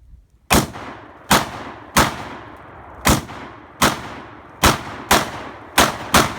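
Rapid semi-automatic fire from an AR-style rifle: nine shots in quick succession at an uneven pace of about one to two a second, each followed by a short fading echo.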